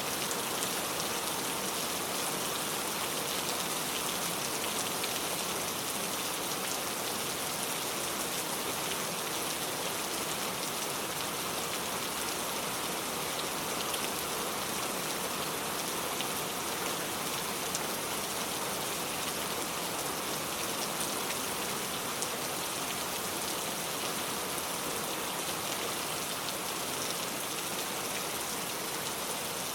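Steady rain falling, a dense even hiss with many small drop ticks on surfaces.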